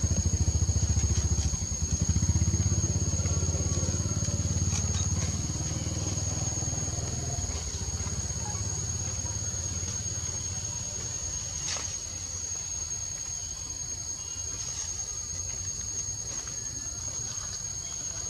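A motor vehicle's engine, loud at first and fading away over the first seven seconds or so, over a steady high-pitched insect drone that continues throughout.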